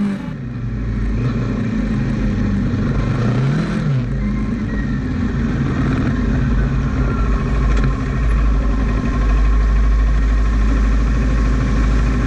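Suzuki LT-R quad's engine running. Its pitch dips and climbs again about four seconds in, then it holds steady.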